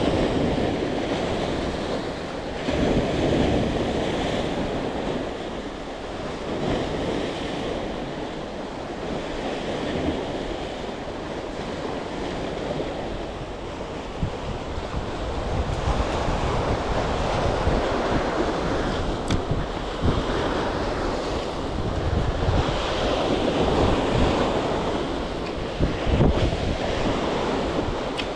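Sea waves washing in, with the surge swelling and easing every few seconds, and wind buffeting the microphone.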